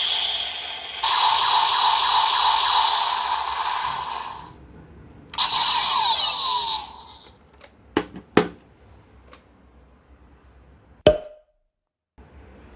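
Kamen Rider Zero-One toy transformation belt playing electronic sound effects through its small speaker: two noisy bursts, the second with falling sweeps. These are followed by three sharp plastic clicks.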